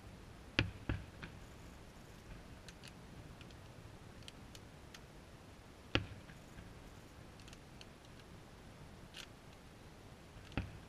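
Aerial fireworks shells bursting at a distance. There are four sharp bangs: two in quick succession about half a second in, one about six seconds in and one near the end, with faint ticks between them.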